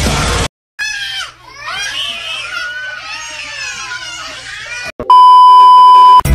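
Music cuts off, then a person wails and cries in a high, wavering voice for about four seconds. The cry is followed by a loud, steady test-tone beep of the TV colour-bars kind, lasting about a second.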